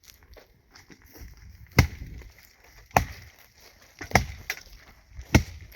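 An axe chopping wood: four sharp, evenly spaced blows, a little over a second apart.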